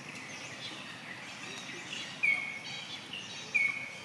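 Birds calling: one bird repeats a short whistled note, slightly falling in pitch, twice in the second half, over fainter chirps and trills of other birds.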